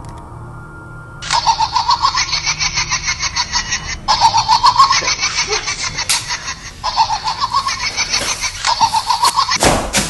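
High-pitched, rapid cackling laughter in three long runs, with a short loud burst near the end.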